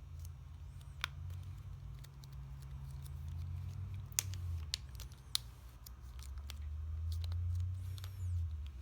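Light clicks and taps of small plastic phone housing parts being handled and pressed into place, a few sharp snaps among them, over a low hum.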